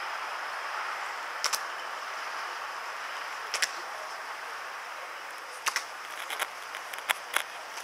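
Sharp clacks of the Evzones guards' hobnailed tsarouchia shoes striking the marble paving as they march and stamp. The clacks come singly or in quick pairs, with a closer run of strikes in the last few seconds, over a steady hiss of background noise.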